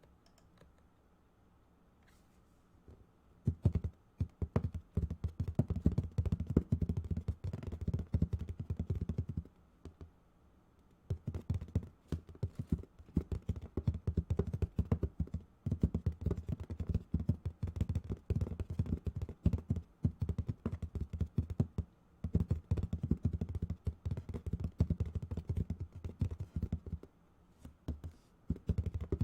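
Fast typing on a keyboard: rapid runs of deep-sounding key clicks in three long bursts, with short pauses between them.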